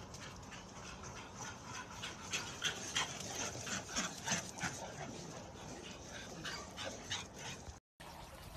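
Several American Bully dogs yipping and whimpering in a quick run of short, high cries. The cries are thickest in the middle few seconds.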